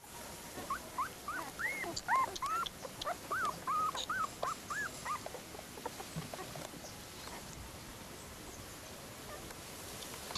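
Newborn Dalmatian puppies whimpering: a quick run of short, high, arching squeals for about five seconds, then they stop.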